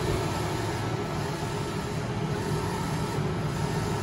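Keditec 9060 UV flatbed printer running mid-print: a steady mechanical hum from the machine.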